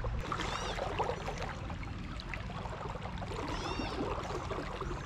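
Creek water running and trickling steadily over a shallow riffle, with a bird giving two short, high, arching calls, about a second in and again near four seconds.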